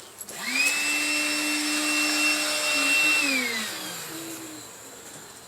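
Electric vacuum motor switched on, spinning up to a steady whine, then switched off a few seconds later and winding down with falling pitch.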